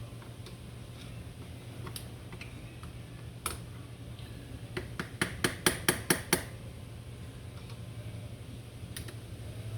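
Small metal engine parts and tools clinking and clicking against each other as the valvetrain is taken apart: scattered single clicks, then a quick run of about eight sharp clinks around the middle. A steady low hum runs underneath.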